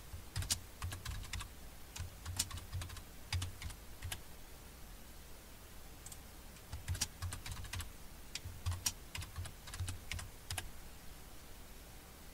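Typing on a computer keyboard: two short runs of keystrokes with a pause of a couple of seconds between them.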